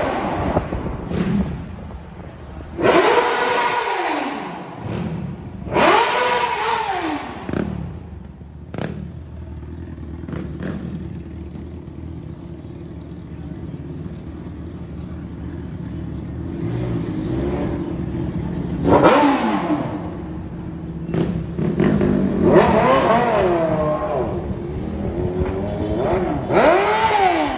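City traffic heard from inside a moving taxi: the cab's steady road drone, with about five louder passes of other vehicles, each a pitched tone that rises and then falls over a second or two.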